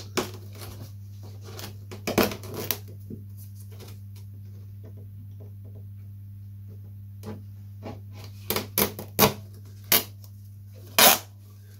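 Craft knife cutting and peeling the covering film off a model glider's fuselage: short crackles and tearing ticks, a cluster about two seconds in and a quicker run near the end, the sharpest just before the end. A steady low hum runs underneath.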